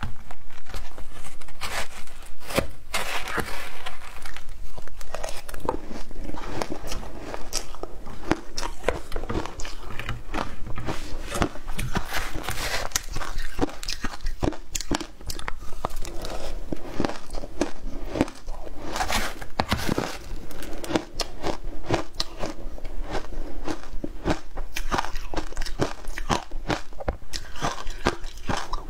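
Close-miked crunching and chewing of shaved ice topped with matcha and milk powder, with a spoon digging into the ice: a dense, continuous run of crackling crunches.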